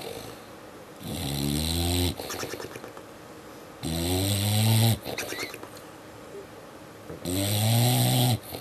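Sleeping dog snoring loudly, three long snores about three seconds apart. Each snore is about a second long and has a pitched tone that bends in pitch.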